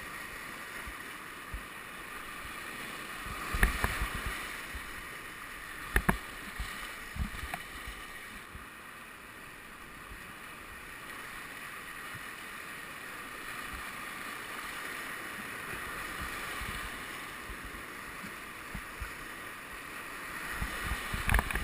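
Whitewater rapids rushing steadily around a kayak, with a few sudden sharp knocks and splashes about four and six seconds in and again near the end.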